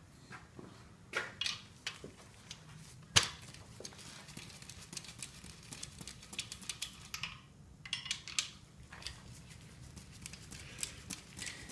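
Ratchet on a socket extension clicking in quick runs as engine main bearing cap bolts are backed out, with small metal clinks and one sharp metal click about three seconds in.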